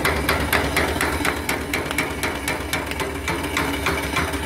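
Small steam engine running, its eccentric-driven feed pump knocking at a steady rhythm of about five knocks a second while it pumps water into the boiler. The knocking is the pump, not the engine.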